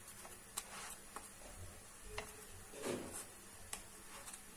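A few faint, light clicks of a wooden spatula against a non-stick frying pan as a gözleme is pushed and turned in it, with a soft scuffing sound about three seconds in.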